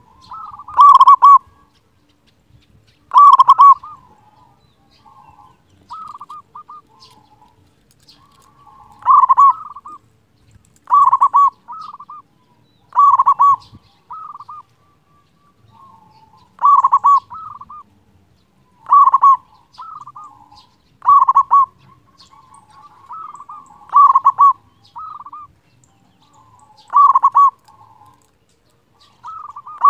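Zebra dove (perkutut) singing its rolling, rhythmic cooing song: loud phrases about every two seconds, with softer coos between them and a lull of about five seconds after the first two phrases.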